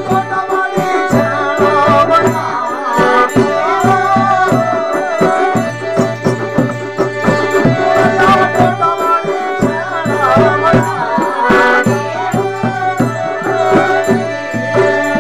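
Himachali folk music: a harmonium holds a steady drone and plays the tune while a barrel drum keeps a quick, even beat with small hand cymbals jingling, and a long-necked lute is plucked.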